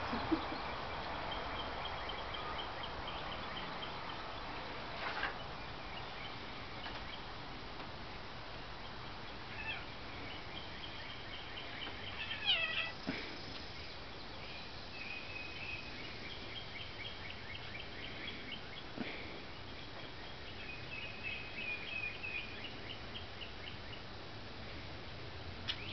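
Birds chirping outdoors in repeated rapid trilled phrases, with one short call falling in pitch near the middle and a few faint knocks.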